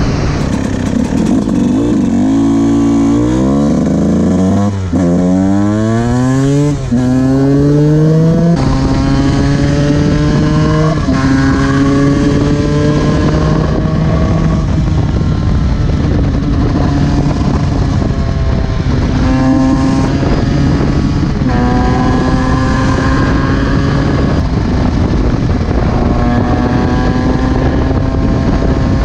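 Yamaha YZ125's single-cylinder two-stroke engine accelerating hard through the gears: the revs climb in several quick rising sweeps, each dropping back at an upshift. After that it runs at steadier revs, with a few more shifts.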